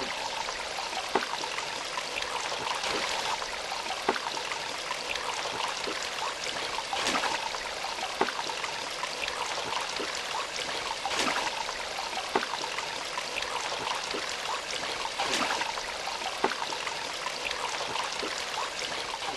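Shallow rocky stream trickling and babbling steadily, with a brief splash or plop every few seconds.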